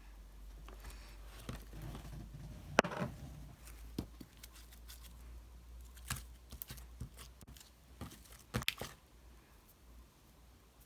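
Scattered light clicks and rustling, as of small objects being handled, with a sharper click about three seconds in and a few more near the end.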